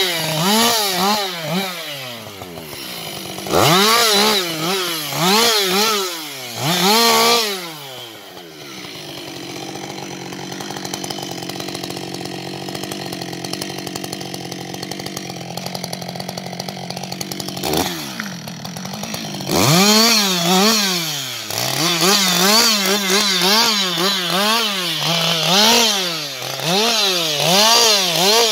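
Husqvarna 560 XP two-stroke chainsaw revving up and down in repeated bursts, settling to a steady idle for about nine seconds in the middle, then revving up and down again as it cuts into a felled log.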